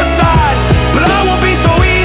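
Instrumental stretch of an alternative-metal track: a steady drum beat under a lead line that slides up and down in pitch, with no vocals.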